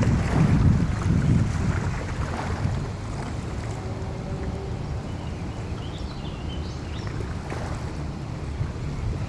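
Wind buffeting the microphone in gusts, strongest in the first two seconds, then settling over the steady wash of the flooded river's water.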